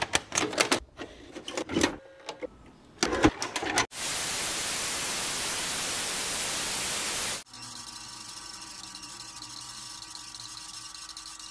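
A VHS cassette pushed into a VCR, with a run of clicks and clunks from the tape-loading mechanism. About four seconds in, TV static hisses steadily for around three seconds and cuts off suddenly, giving way to a fainter steady hum with a few held tones.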